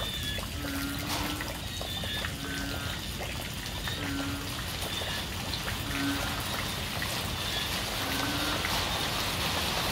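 Frogs calling in heavy rain: a short, low note repeats about every two seconds, with higher, rapidly pulsed calls from other frogs between them, over the steady hiss of rain and running water.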